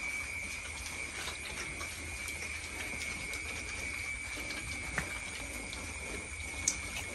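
Pigs eating dry feed off a concrete floor: irregular small crunching and clicking from chewing and rooting, with a couple of sharper clicks near the end, over a steady high-pitched hum.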